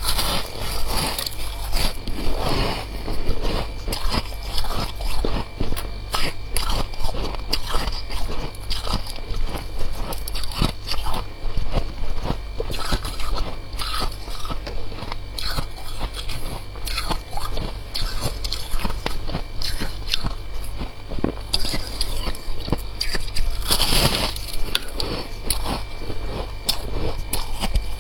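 Freezer frost being bitten and chewed close to the microphone: dense, irregular crunching, with a steady low hum underneath.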